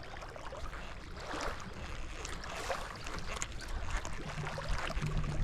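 Water lapping and splashing close by, with many small irregular ticks and splashes over a low rumble.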